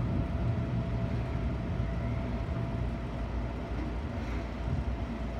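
Seibu Shinjuku Line electric commuter train moving slowly, heard from just behind the driver's cab: a steady low rumble of the running train with a faint steady tone above it.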